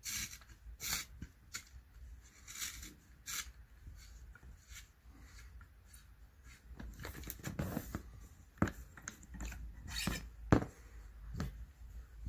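The blade of a handheld billiard tip side cutter shaving the leather off the side of a layered cue tip as the tool is turned round the cue, in short, repeated scraping strokes. Louder rubbing and a few sharp knocks come in over the last few seconds.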